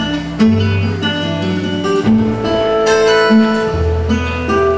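Recorded song music with acoustic guitar over low, held bass notes.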